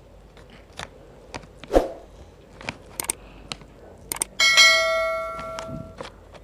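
Tableware being handled: scattered light clicks and knocks, with one louder knock about two seconds in. Then a clear ringing strike, as of a metal or glass dish or utensil hit, rings out with several tones and fades over about a second and a half.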